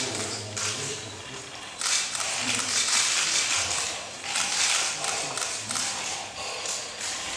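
A man's harsh, rasping breaths and low grunts, coming in several loud, hissing surges a second or two long.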